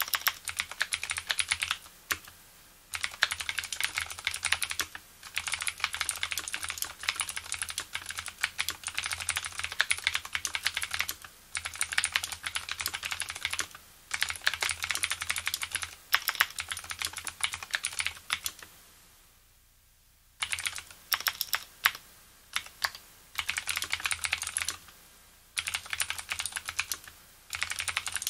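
Typing on a Leopold FC750R mechanical keyboard with Cherry MX Blue switches, its springs and stabilizers lubed: rapid runs of sharp keypress clicks, the clicky switch mechanism in every stroke. The runs break off in short pauses, with one longer pause of about two seconds past the middle.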